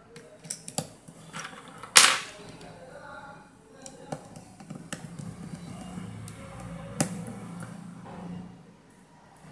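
Sharp clicks and snaps of smartphone parts being pressed and clipped into place during reassembly. The loudest snap is about two seconds in, with softer handling clicks before and after it.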